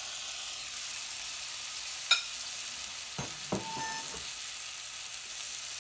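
Fresh peach pieces sizzling in melted butter and sugar in a saucepan, a steady hiss. A sharp clink comes about two seconds in, then two softer knocks about a second later.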